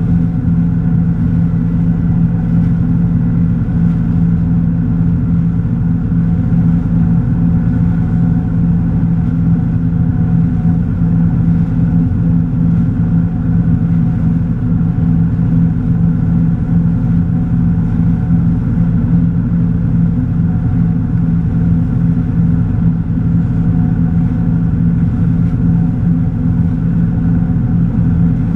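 Tige 22ve wake boat's inboard engine running steadily under load, a constant low drone, held at about 12 mph by its Perfect Pass speed control with 500 pounds of rear ballast.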